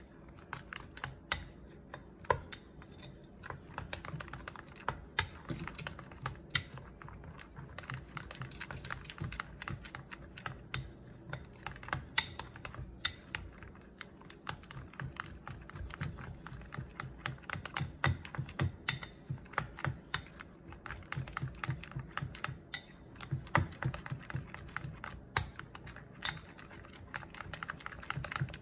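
Wooden chopsticks beating thick batter in a glass mixing bowl: rapid, irregular clicking and tapping against the bowl, with a few sharper, louder taps.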